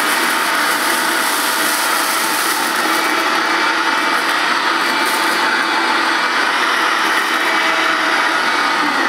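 Hoover S1122 Dustette, a 150-watt dirty-fan handheld mains vacuum cleaner, running steadily with a motor whine while it sucks up paper scraps and couscous, which pass through its fan on the way to the bag.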